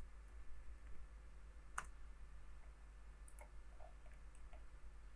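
Faint computer mouse clicks: a sharper one about two seconds in, then a few light ones between three and four and a half seconds, over a low steady hum.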